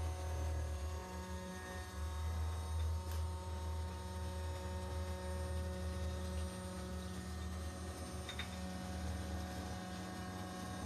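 Spindle of a 6040 CNC router running as a ball-nose end mill makes a finishing pass over 304 stainless steel under flood coolant: a steady hum with several fainter steady tones above it.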